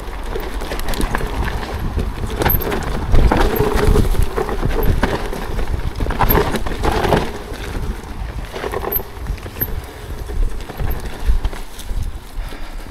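ProPain Ekano 2 mountain bike descending a rocky trail: tyres knocking and clattering over rocks, with the bike rattling over the bumps. Wind rumbles heavily on the action camera's microphone.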